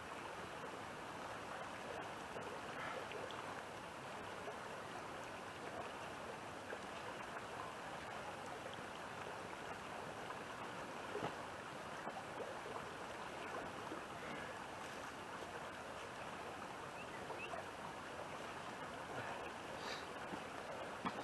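Steady rushing of flowing creek water, with a few faint knocks now and then.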